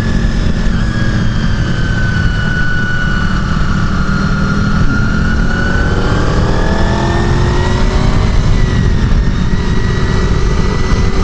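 1999 Honda VFR800's V4 engine running hard on the track, under heavy wind rush on the microphone. Its pitch sinks slowly from about two seconds in, then climbs again from about six seconds in as it accelerates.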